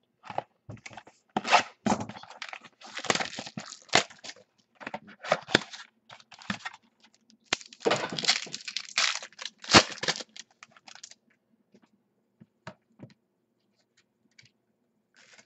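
Wrapping on a trading-card box being torn open and crinkled, in a run of crackling bursts. After about eleven seconds it dies down to a few light clicks and taps as the cards are handled.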